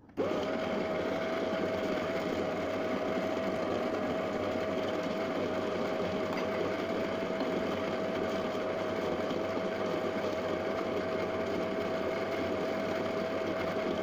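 Baratza Encore burr coffee grinder switching on abruptly and running steadily: a constant motor hum with a single steady whine on top.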